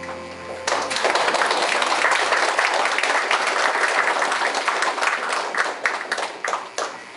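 An audience applauding. The applause starts under a second in, as the last held note of the song stops, and thins out near the end.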